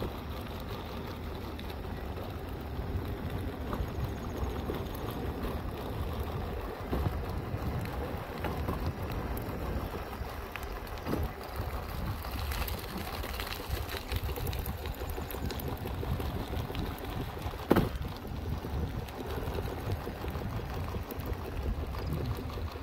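Halo Rover hoverboard rolling over cracked asphalt: a steady rumble of the wheels on the rough surface. About three-quarters of the way in there is one sharp knock.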